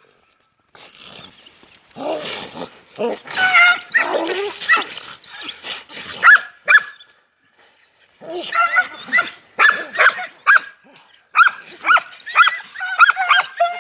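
Dogs barking in quick runs of short, loud calls, with a break of about a second a little past the middle.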